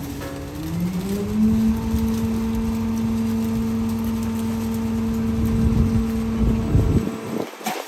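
Garbage truck's diesel engine revving up and holding a steady raised speed, as it does to drive the hydraulic compactor. The hum rises in pitch over the first second or so, holds level, then cuts off near the end.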